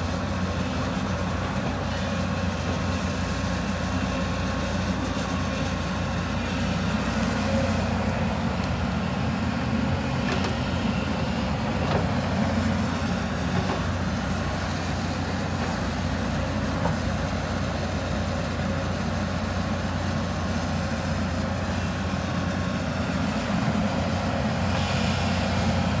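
Hyundai 220 tracked excavator's diesel engine running steadily under load while the machine digs and swings.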